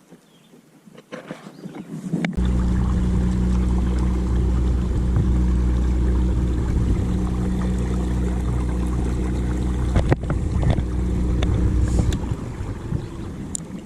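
Boat motor running steadily with a low hum, starting suddenly about two seconds in and dying away near the end.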